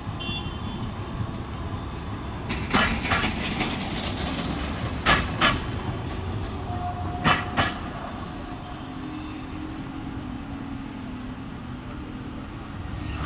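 A Bombardier CR4000 tram runs past over a steady rumble. Its wheels give three pairs of sharp clacks over a rail joint, about two seconds apart. A low hum follows near the end as a second tram approaches.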